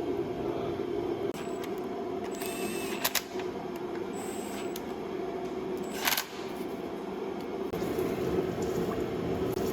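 Steady workshop hum with a couple of sharp clicks, about three and six seconds in, and a few brief high squeaks.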